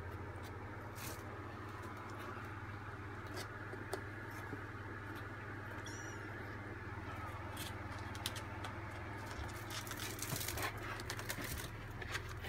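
Three-week-old kittens scrabbling and tussling on a blanket in a cardboard box: soft rustles and scratches that get busier over the last few seconds, with one brief high squeak about six seconds in, over a steady low hum.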